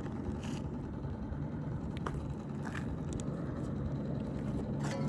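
A steady low engine hum, with a few faint light clicks and scrapes over it.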